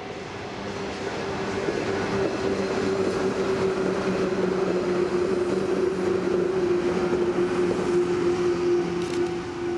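JR 115-series electric multiple unit running past, its MT54 traction motors giving a steady hum that dips slightly in pitch partway through, over wheel-on-rail rumble. It grows louder as the train draws level and eases off near the end as the last cars go by.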